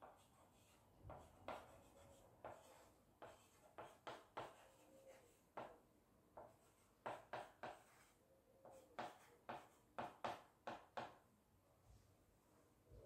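Chalk writing on a small blackboard: a faint run of short, quick strokes at an irregular pace, stopping about two seconds before the end.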